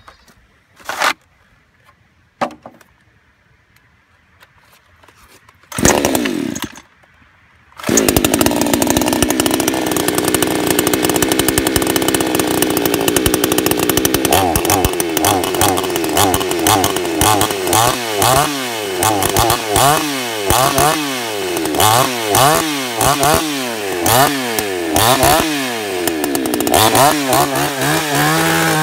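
A 58 cc Chinese two-stroke chainsaw, a clone of the Zenoah G455. Quiet at first apart from two short sounds, then a brief burst about six seconds in that falls away. About eight seconds in the engine starts and runs steadily at high revs. From about fourteen seconds in it cuts down into an oak log, its engine speed rising and falling about once a second under the load.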